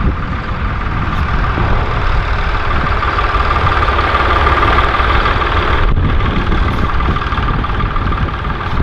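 Tractor engine running as a tractor works nearby, growing louder toward the middle, with a steady whine over the low rumble.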